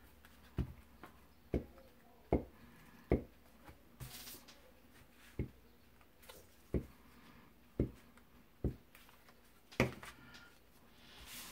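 Paper and craft supplies being handled on a cutting mat: about a dozen light taps and knocks spread unevenly, with two brief rustles of paper, one about four seconds in and one near the end.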